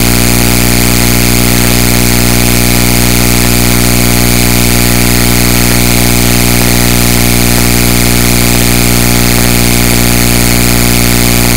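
Loud, steady electrical buzz with many evenly spaced overtones, drowning out the speech: a fault in the church's sound or recording chain, such as a ground-loop or digital glitch.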